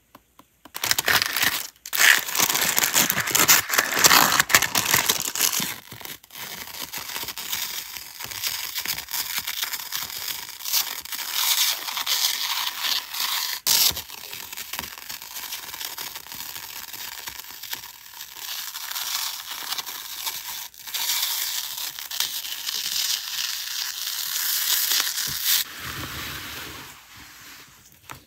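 Decorative tape being peeled off its roll and handled, giving a sticky crackling and tearing sound. It is loudest over the first few seconds, then goes on as a softer, uneven crackle that fades near the end.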